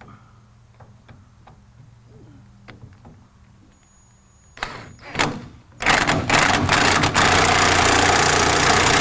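Power wrench tightening the bolt on a pickup's fuel pump mounting bracket: a few faint clicks, then two short blips about four and a half seconds in, then the tool running steadily to the end with a rapid clatter.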